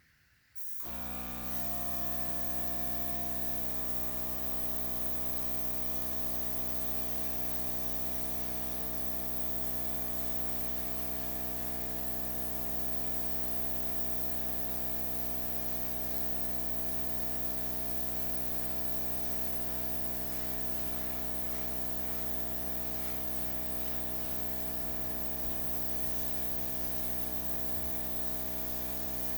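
A small electric blower motor switched on about a second in, then running steadily with a constant motor hum under a rush of air.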